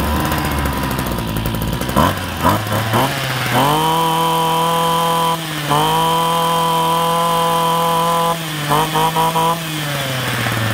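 Ryobi 26cc brush cutter's two-stroke engine firing up and idling, then blipped a few times and held at high revs for several seconds with one brief dip. More quick blips follow before it drops back to idle near the end.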